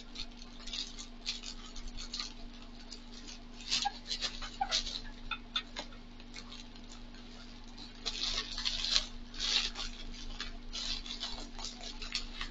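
Plastic bubble wrap crinkling and rustling as it is handled, in irregular crackly bursts, loudest about four seconds in and again from about eight to ten seconds in. A faint steady hum sits underneath.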